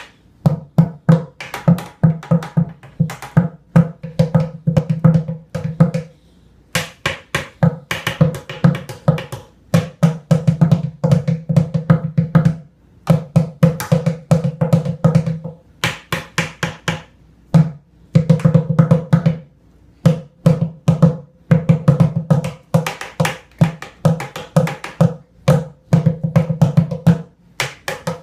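Drumsticks beating on the bottom of an upturned plastic bucket used as a drum, in fast rhythmic phrases with short pauses between them.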